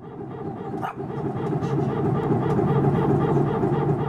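An airliner's hydraulic power transfer unit barking: a loud, rapidly pulsing growl over a low hum that builds over the first second or so, heard from inside the cabin. It is the sign of the hydraulic system pressurizing on engine start.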